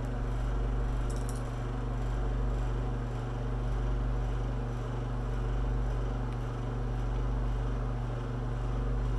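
Steady low mechanical hum in a small room, with a brief crisp crackle about a second in as a small red chili pepper is bitten into, then quiet chewing.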